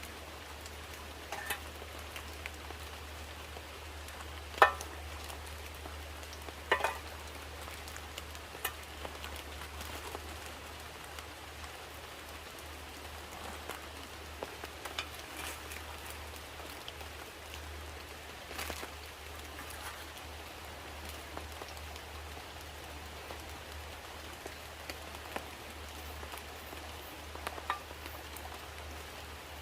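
Steady rain hissing, with a few sharp louder drips or taps scattered through it, the sharpest about four and a half seconds in.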